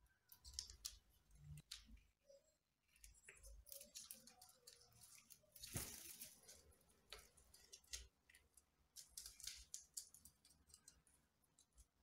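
Cockatiel moving through a potted palm, rustling the fronds: a busy run of faint crisp crackles and clicks. About six seconds in there is a louder burst of wing flaps.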